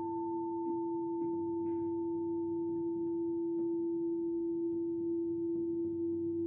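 A singing bowl rings on steadily after being struck, with a strong low tone and a fainter higher tone above it.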